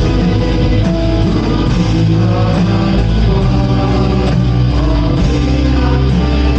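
A church praise band playing a worship song, with guitar to the fore over sustained bass and keyboard-like tones, at a steady level.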